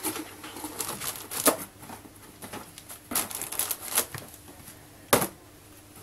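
Handling noise as a pistol and a block of cartridges are set into a cardboard box: scattered clicks, light knocks and rustling, with one sharper knock about five seconds in.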